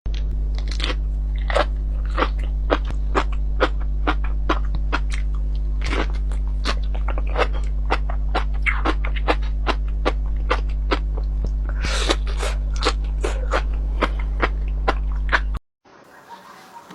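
Close-miked crunching and chewing of crisp food: sharp crunches about two or three a second over a steady low electrical hum. Everything cuts off abruptly near the end.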